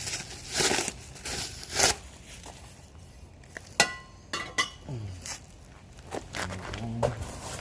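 Crinkling and rustling of packaging as exhaust parts are handled, with one sharp knock about four seconds in that rings briefly.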